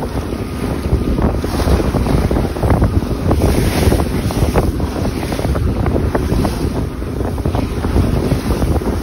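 Wind buffeting the microphone over the rush and splash of choppy water along the hull of a 28 ft Pearson Triton sailboat under way, steady and loud with many short splashes.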